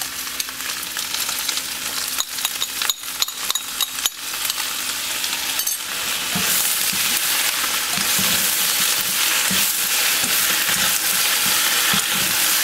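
Bok choy sizzling as it is stir-fried in a hot oiled wok, turned with a wooden spatula and chopsticks. The sizzle grows louder about six seconds in.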